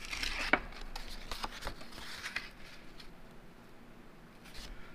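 Light handling noises as a cardboard template is laid and shifted by hand on a rubber sheet: a few soft taps and rustles, mostly in the first two seconds, and one more tap near the end.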